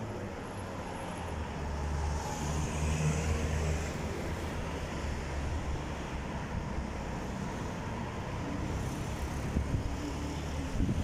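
Street traffic noise: a vehicle passes close by, its engine hum swelling and fading between about two and four seconds in, over a steady background of road noise.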